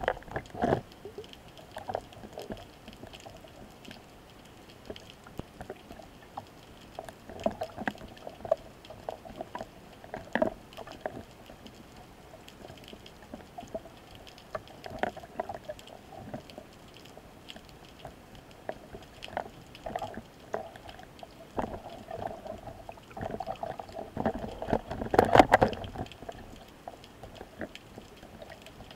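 Muffled underwater noise heard through a camera mounted on a speargun: scattered clicks and knocks with a low rush of moving water, swelling louder near the end.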